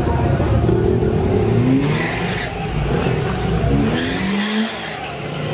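A car engine revving twice in rising sweeps over a steady low engine rumble.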